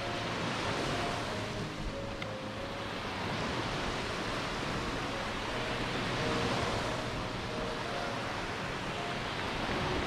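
Surf washing onto a white-sand beach, the hiss of the waves swelling and easing several times.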